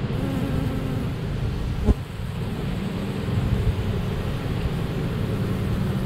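A mass of honeybees buzzing steadily, with one sharp knock about two seconds in.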